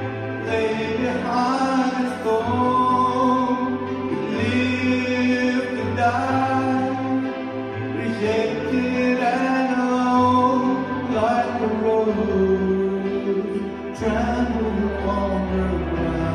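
Church worship team singing a praise song to electronic keyboard accompaniment, the keyboard holding long low chords that change about every two seconds.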